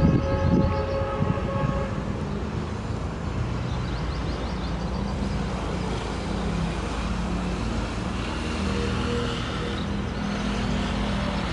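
Chinese-built CKD diesel locomotive approaching under power, its engine running steadily and rising a little in pitch past the middle. A chord of steady tones, the locomotive's horn, sounds for about the first two seconds.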